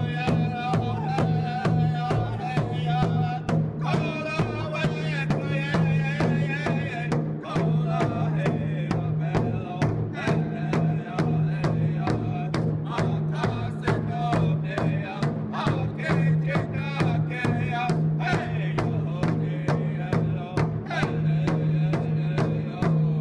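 Music with a steady drumbeat of about three strokes a second under wavering pitched parts.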